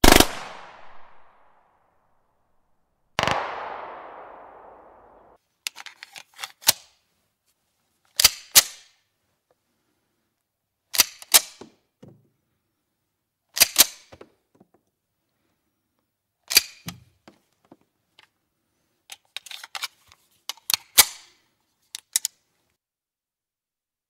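Two 9 mm CZ 75 pistol shots, each ringing out and fading; the second tail cuts off abruptly after about two seconds. Then come small clusters of sharp metallic clicks and clacks every few seconds, from the pistol's action being handled: slide racked, hammer cocked and magazine worked.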